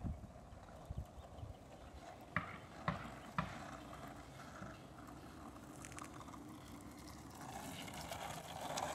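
Skateboard rolling on asphalt with a low steady rumble, and a handful of sharp clacks, mostly between two and three and a half seconds in.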